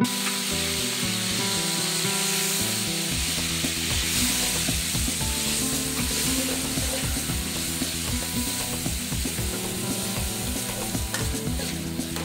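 Garlic and sliced meat sizzling in hot oil in a metal pan, stirred with a metal spatula that scrapes and knocks against the pan.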